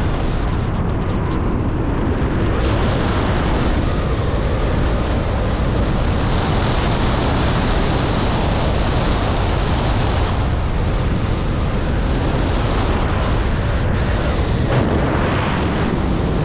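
Steady, loud wind noise buffeting a helmet camera's microphone as a skydiver descends under an open parachute canopy, with a stronger hiss in the middle.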